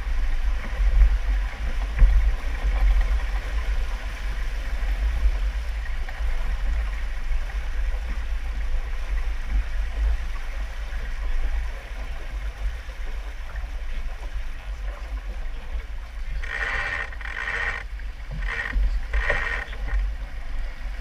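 Wind buffeting an action camera's microphone over the steady rush of water along the hull of a keelboat sailing fast under spinnaker. Four short, higher-pitched sounds come close together near the end.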